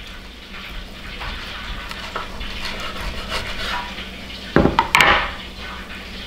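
Knife sawing through the crisp, deep-fried panko crust of chicken cordon bleu on a wooden cutting board, a steady crackling crunch. About four and a half seconds in come a couple of louder knocks and a scrape on the board as the slices are pushed together.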